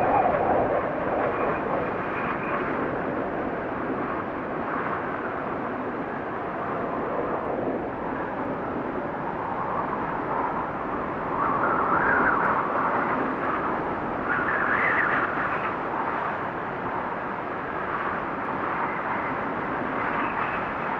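Steady wind noise that rises and falls in gusts, swelling most strongly near the start and again around twelve and fifteen seconds in.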